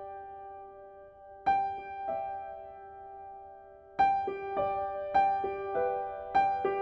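Slow, gentle solo piano music: notes struck a few at a time and left to ring out. A note or chord comes about every half second to two seconds, with a busier run of notes in the second half.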